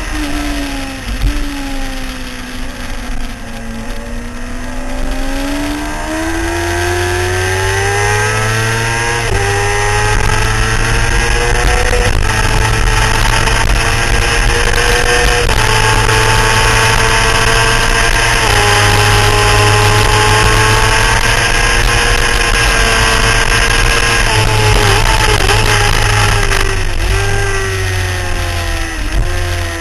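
Motorcycle engine at full track pace: it slows briefly, then accelerates hard, its pitch climbing and dropping at upshifts about 9, 12 and 18 seconds in. Wind rushes loudly on the microphone at speed, and near the end the engine wavers through downshifts and slows for a corner.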